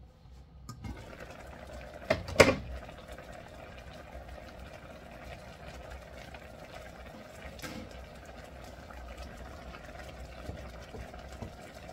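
Chicken broth simmering and bubbling in a wok. Just after two seconds in come two loud clanks, as the glass lid with its steel rim is lifted off and set down. Near the end a wooden spoon stirs the pot.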